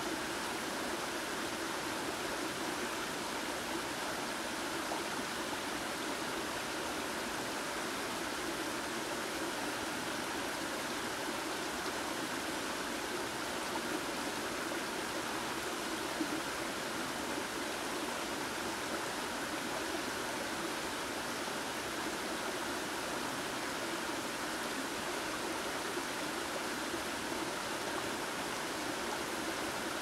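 Shallow mountain river flowing steadily over rocks and gravel, an even rush of water.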